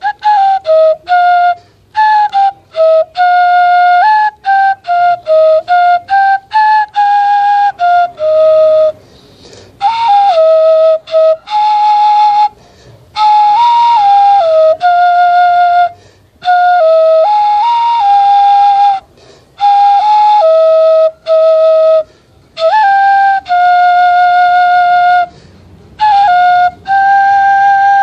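Homemade bamboo native-style flute playing a slow melody in short phrases of held notes stepping between a few pitches, with brief breath pauses between phrases.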